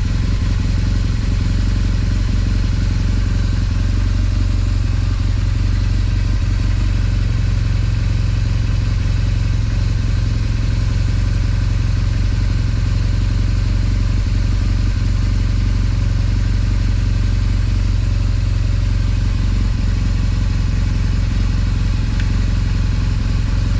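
BMW R1200GS's boxer-twin engine idling steadily.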